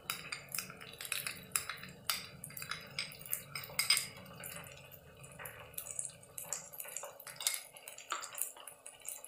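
A metal spoon clinking and scraping against a small glass bowl in a run of irregular light taps, as tomato ketchup is scraped out into a frying pan. The loudest clink comes about four seconds in.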